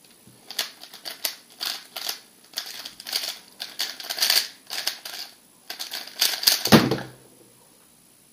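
MoYu RS3 M 2020 3x3 speedcube turned very fast in a speed solve: rapid clacking of the layers in quick runs with short pauses for about six seconds, ending with a low thud as the solved cube is put down on the timer mat.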